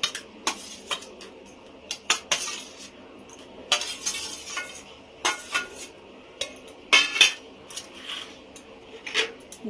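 Metal spoon scraping and clinking against a steel plate and a steel box while raw prawns are scooped from one into the other: a string of sharp clinks with a few longer scrapes.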